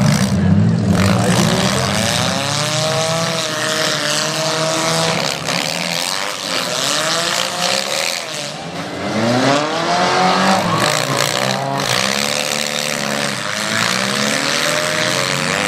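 Several demolition derby cars' engines revving up and down over and over as they reverse and charge, with a few sharp knocks of car-on-car hits.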